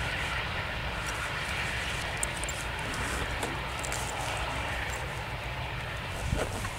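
Airbus A380's four turbofan engines running at low thrust as the jet rolls along the runway after landing: a steady, even rumble and hiss.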